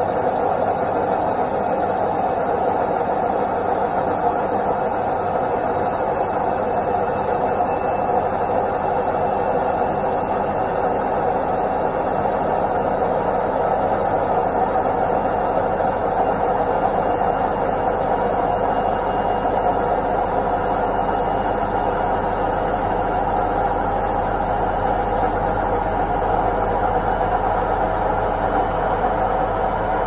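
Indesit IWC71252 front-loading washing machine on its spin cycle: a steady loud rush of the drum spinning, with the motor's faint high whine climbing slowly and a low hum building from about a third of the way in.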